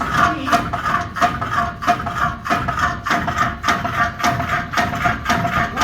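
Water-turbine-driven jig saw running, its long blade stroking up and down with a regular knock about three times a second over a steady mechanical tone.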